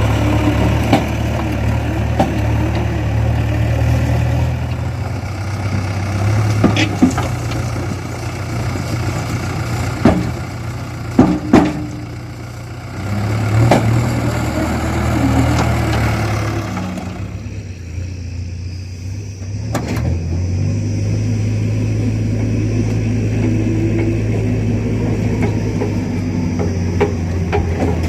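Backhoe loader's diesel engine running while digging and loading mud, with a few sharp knocks about ten to fourteen seconds in. The engine sound drops away for a few seconds past the middle, then runs steadily again.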